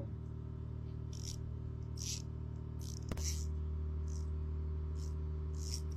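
Koken 2726Z 3/8-inch drive ratchet being swung back and forth. Each stroke gives a short burst of fine, rapid clicks from its high-tooth-count mechanism, about once a second, over a steady low hum.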